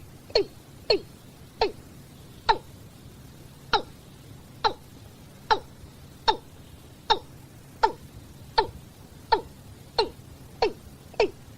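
Watercock calling over and over: a series of short, deep notes, each sweeping downward in pitch. The calls come about two a second at first, spread out to roughly one a second, then quicken again near the end.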